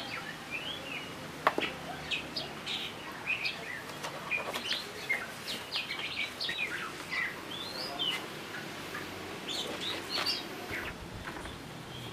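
Small birds chirping outdoors, many short high calls scattered throughout, with one sharp click about one and a half seconds in.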